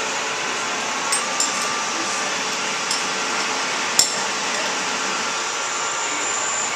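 Steady whir of machine-shop machinery, with a few light metal clinks and one sharp metallic click about four seconds in.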